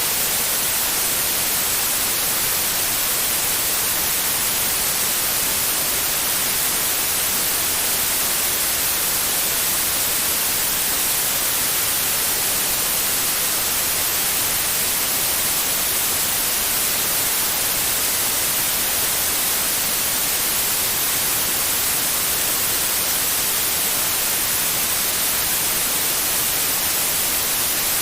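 Steady white noise like TV static: an even, unchanging hiss across the whole range, brightest in the highs.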